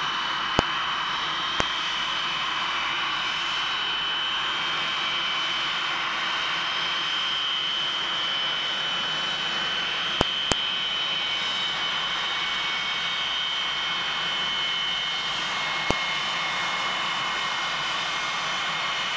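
Boeing 727-200's three Pratt & Whitney JT8D turbofans running at taxi power, a steady jet noise with a high-pitched whine held on one note. A few sharp clicks break in, two near the start, two close together about ten seconds in, and one near the end.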